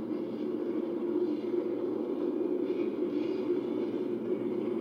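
Steady roar of the jet engines of a four-ship diamond of F-16 Fighting Falcons climbing, played back through a television's speaker, with a brief rise in hiss about three seconds in.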